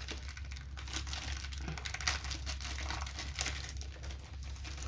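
Plastic packaging of a diamond painting kit crinkling and rustling as it is handled, in irregular crackles, over a low steady hum.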